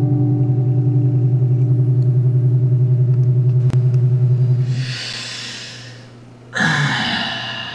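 A guitar chord held with a fast, even pulsing, fading out about five seconds in. Then a breathy hiss into a microphone and, near the end, a sudden loud breathy vocal sound from a man that drops in pitch.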